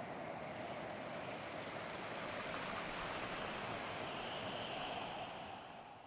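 Rushing water of a stream and waterfall, a steady noise that fades out near the end.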